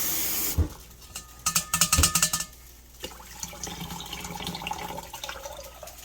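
A tap running for a rinse, shut off about half a second in with a knock. Then comes a short burst of clinks and rattles, followed by faint trickling and dripping water.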